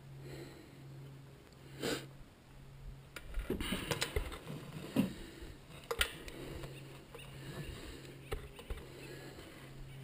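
Sniffing and breathing close to the microphone, with rustling and a few sharp clicks from climbing rope and a metal carabiner being handled.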